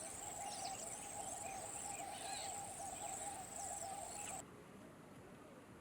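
Wild ambience of insects trilling in a steady, high, evenly pulsing chorus, with a lower warbling call and many short falling chirps over it. It all cuts off suddenly about four and a half seconds in, leaving only faint hiss.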